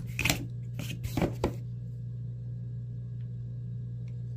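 WE Cybernetic titanium folding knife being handled: a few sharp clicks and knocks in the first second and a half, then only a steady low hum.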